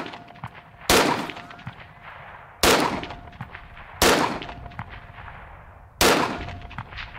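Four shots from a Rock River Arms LAR-15 AR-15 carbine in .223, fired about one and a half to two seconds apart, each trailing off in an echo.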